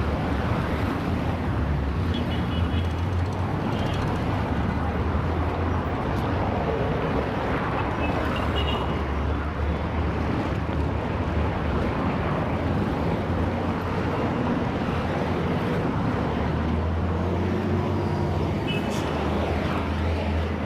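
Heavy city traffic: a steady din of vehicles with a continuous low engine rumble and tyre noise.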